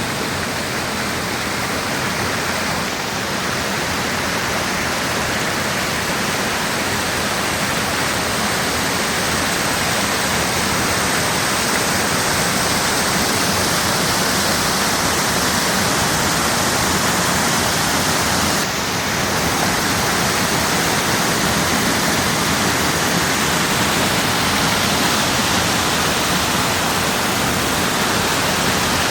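Waterfall, the steady rush of falling water, with a brief dip in level about two-thirds of the way through.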